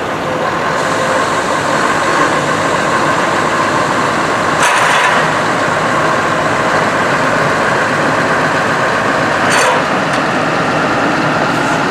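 Heavy truck's diesel engine running steadily, with two short hisses about five and ten seconds in.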